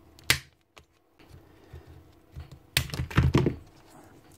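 Hard plastic clicking and rattling as a drill motor's plastic fan shroud is prised off and worked loose with a screwdriver. There is one sharp click right at the start, then a quick cluster of clicks and rattles about three seconds in.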